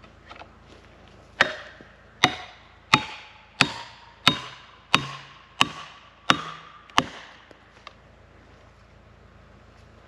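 Nine hammer blows driving a felling wedge into the back cut of a dead tree, about one every 0.7 seconds, each a sharp strike with a brief ring.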